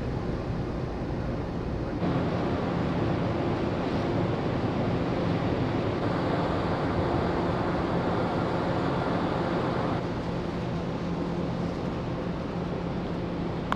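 Steady drone of the ferry New Camellia's engines heard from the open deck, a low hum under a rush of wind and water. It gets louder about two seconds in and drops back about ten seconds in.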